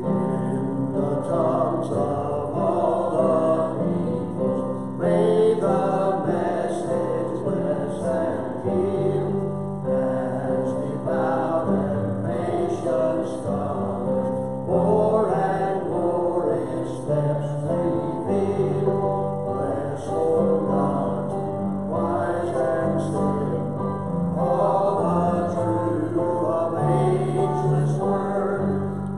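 A hymn sung by a man into a handheld microphone, backed by a small choir and instrumental accompaniment, in a slow, steady tempo.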